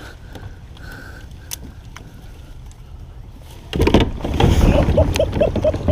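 Kayak lurching off the bank into the creek: a sudden loud rush of hull scraping and water noise about four seconds in, with a quick run of short squeaks, as the paddler nearly tips over.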